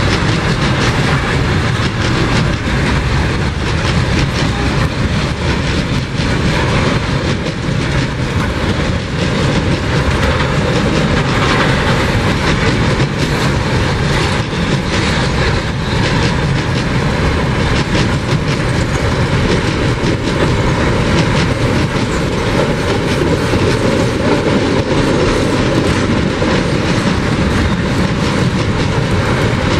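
Train of empty container flatcars rolling past, wheels clacking steadily over the rail joints with a loud, even running noise.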